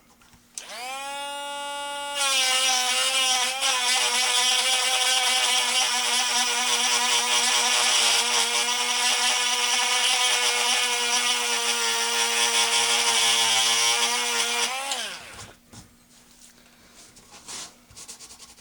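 Dremel rotary tool spinning up with a rising whine, then grinding down a wooden dowel plug in a gun stock at a steady speed, and winding down about fifteen seconds in.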